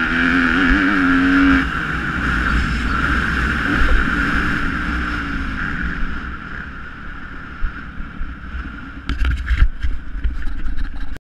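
Dirt bike engine heard from an onboard camera while riding a motocross track. The revs rise and fall with the throttle for the first second or two, then the engine runs steadily and grows quieter from about halfway. A few sharp knocks and rattles come near the end.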